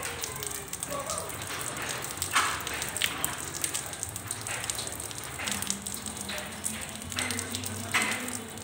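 Steady rain falling on a wet hard surface: an even hiss of drops with sharper single splashes scattered through it, the loudest about two and a half seconds in and again about eight seconds in.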